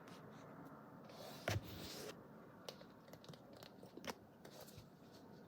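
Faint handling sounds: a sharp click about a second and a half in, followed by a short rustle, then a few scattered light ticks.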